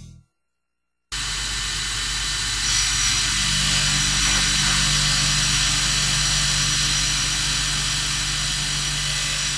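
UTMA P20 CNC profile grinder running: a steady machine hiss with a low hum that cuts in abruptly about a second in and grows a little louder about three seconds in.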